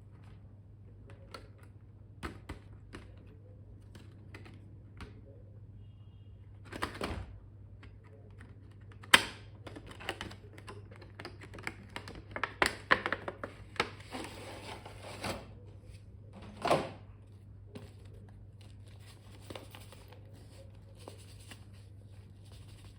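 Stationery and its packaging being handled on a table: scattered light clicks and taps of small plastic items, with a sharp click about nine seconds in and a stretch of crinkly rustling in the middle. A steady low hum runs underneath.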